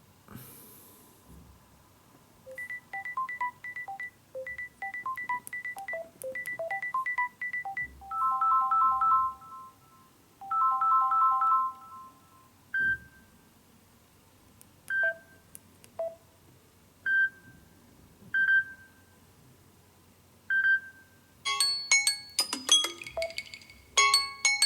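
Samsung Galaxy Note 10 stock ringtones played in turn. First a short tinkling melody repeats a few times. Then come two held chime chords, then single pings about every two seconds, and near the end a busier bell-like tune starts.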